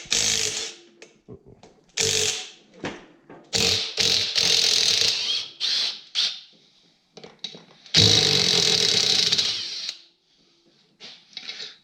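Impact wrench run in four bursts, the longest about three seconds, spinning out the engine's crankcase bolts.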